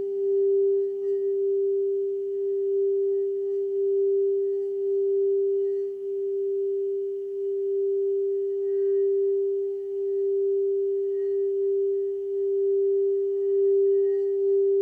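Crystal singing bowl sounding one sustained pure tone as its rim is circled with a mallet, the tone swelling and easing in slow waves about once a second.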